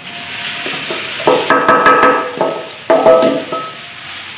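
Cauliflower going into hot oil in a kadhai, sizzling steadily. Twice, about a second and a half in and again about three seconds in, a brief ringing tone sounds over the sizzle.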